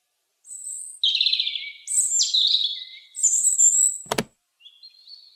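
Robin singing: a run of quick, high, thin phrases that sweep downward, then a single sharp click about four seconds in and a few faint chirps near the end.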